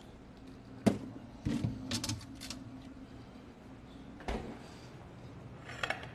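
Refrigerator door being opened and shut while a cake plate is put inside: a sharp knock about a second in, a short run of knocks and rattles around two seconds, a dull thump a little after four seconds, and a few light clicks near the end.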